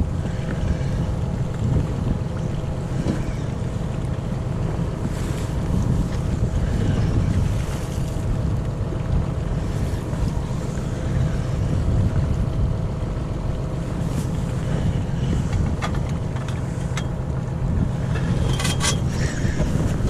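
Wind buffeting the microphone over a steady low hum on a boat at sea, with a few sharp clicks near the end.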